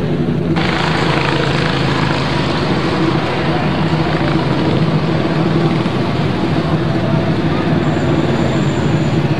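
Steady engine noise with a hiss that grows fuller about half a second in.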